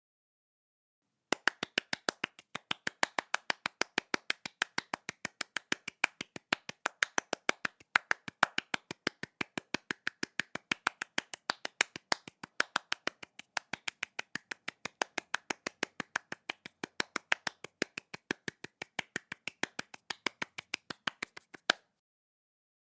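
Hands clapping quickly and lightly in a steady run of separate claps, about five a second, starting about a second in and stopping shortly before the end.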